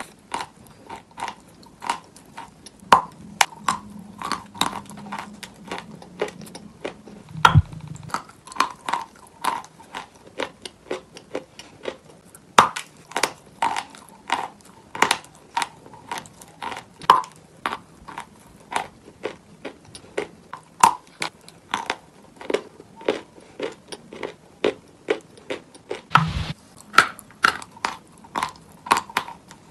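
Close-up chewing and crunching of a piece of chalk coated in clay paste: a quick, steady run of sharp crunches, several a second. Two low thumps come through, about seven seconds in and again at about twenty-six seconds.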